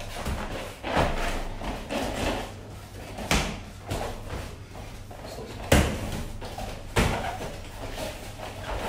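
Kickboxing sparring: gloved punches and kicks landing with sharp smacks, four clear hits a second or two apart, the loudest just past the middle.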